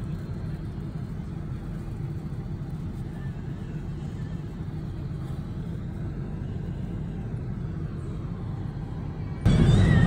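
Steady low rumble of a Boeing 777-200's economy cabin in flight, engine and airflow noise. About nine seconds in it cuts abruptly to a louder stretch of the same rumble.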